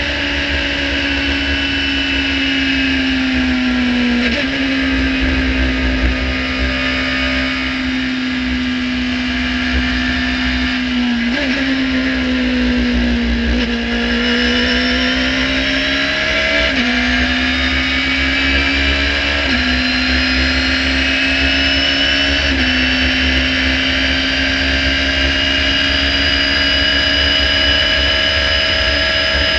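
Radical SR3-RSX race car's engine running hard, heard from the open cockpit over a heavy low rumble of wind and road noise. Its pitch changes sharply at a handful of gear changes: it slows and shifts down to third about midway, then pulls back up through the gears to sixth.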